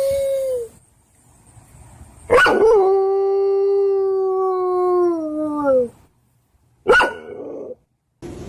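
Dog howling: the end of one howl in the first second, then a long howl of about three and a half seconds that rises sharply, holds steady and sags at the end, followed by a short yelp.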